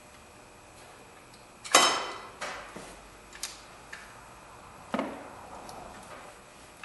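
Metal tools and bolts clanking against engine parts while the belt tensioner is unbolted. A sharp ringing clank comes about two seconds in, a few lighter clicks follow, and a second clank comes about three seconds later.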